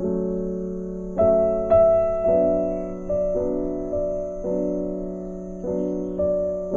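Background music: gentle piano, notes and chords struck about once a second and left to ring and fade.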